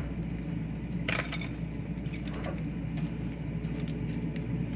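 Cooking utensils clinking and scraping against a saucepan, with a cluster of light knocks about a second in and scattered ticks after, over a steady low hum.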